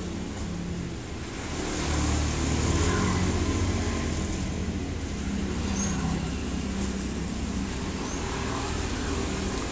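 Road traffic going by: a motor vehicle's low engine rumble swells about two seconds in and eases off again, over a steady low hum.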